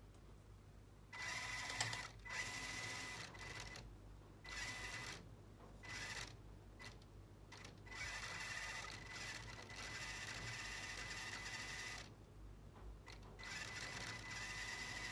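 Lego Technic RC car's electric motors and gear train whirring in several runs of a few seconds each, with a steady high whine, as the car is driven in short spurts.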